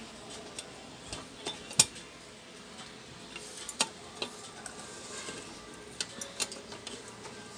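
Scattered light clicks and taps of a screwdriver and a plastic power-socket housing against a rice cooker's plastic body as the socket is fitted back in place; the sharpest click comes a little under two seconds in.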